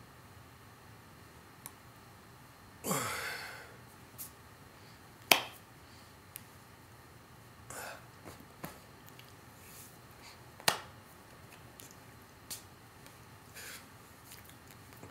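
A person signing in sign language, making incidental body sounds: a few sharp slaps of the hands, loudest about five and ten seconds in, with lighter clicks between. About three seconds in there is a breathy exhale that drops in pitch, and there are a couple of shorter breath puffs later.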